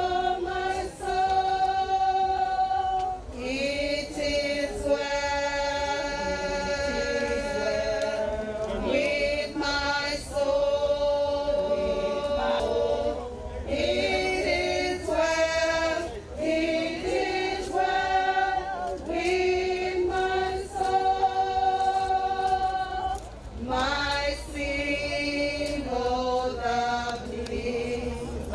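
A choir singing unaccompanied in harmony, holding long notes of a few seconds each.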